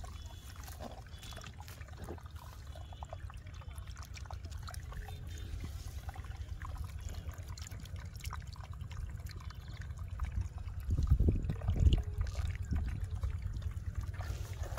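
Rain runoff trickling over a muddy lip into a small pool, with small splashes as a hand reaches into the water. A steady low rumble sits underneath and swells louder about eleven seconds in.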